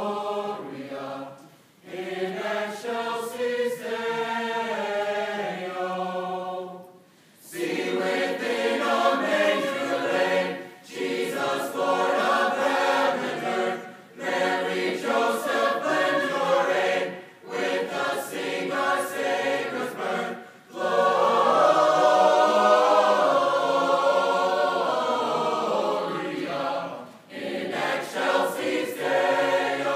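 A choir singing in phrases separated by brief pauses for breath, fuller and louder over the last third.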